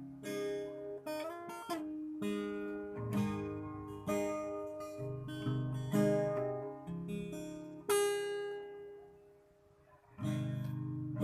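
Acoustic guitar strummed through a chord intro. About eight seconds in, one chord is left to ring and die away almost to silence, then the strumming starts again near the end.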